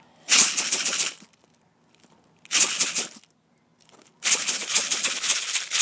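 Plastic airsoft BBs rattling in a plastic bottle as it is shaken to feed them into a water balloon. The rattling comes in three bursts: a short one near the start, one about halfway, and a longer one near the end.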